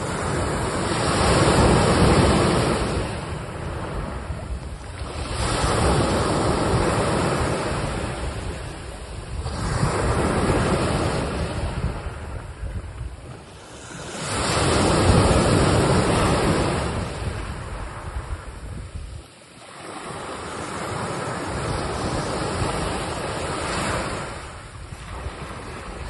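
Sea waves washing in on a shore. The rushing noise swells and falls back in surges about every four to five seconds.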